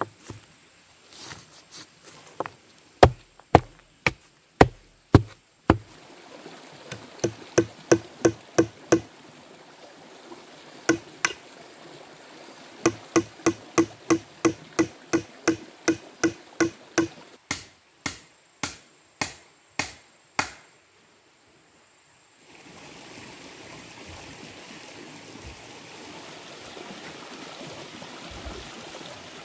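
Machete chopping into a wooden post: a few heavier thuds, then a steady run of sharp strikes about two a second with a ringing note, stopping about twenty seconds in. After a short lull a steady rushing background noise takes over.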